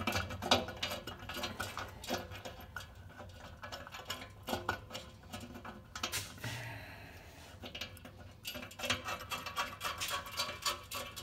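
Small metal clinks and scrapes as a stainless steel exhaust cutout is turned and seated by hand on its flange, with a brief quieter stretch about two-thirds of the way through.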